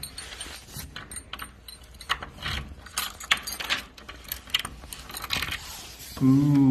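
Keys jangling and clicking in a doorknob lock and a deadbolt as an apartment door is unlocked, a run of irregular metallic clicks and rattles. A brief, loud voice sounds near the end.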